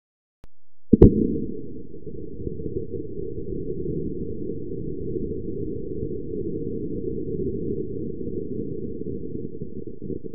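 Slowed-down sound of a wooden match being struck and catching. A sharp click comes about a second in, then a steady, deep rumble as the match head flares and burns.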